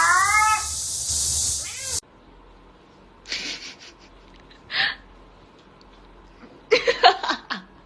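A cat meowing, with a rising meow about the first half-second. After an abrupt drop in the background hiss, only a few short scattered sounds follow, with a brief louder cluster of them near the end.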